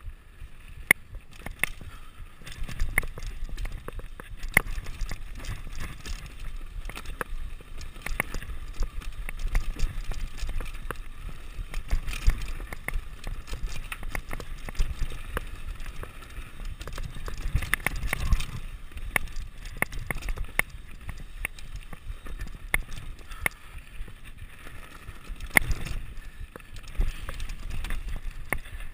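Mountain bike riding fast over a rough dirt and rock trail: continuous rattling and clattering of the frame and parts, with sharp irregular knocks over a low rumble of tyres on the ground.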